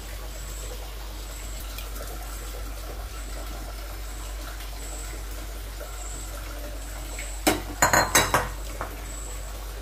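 A quick cluster of about five sharp metal clanks of a utensil against an aluminium pressure-cooker pot, about three quarters of the way through, over a faint steady kitchen background.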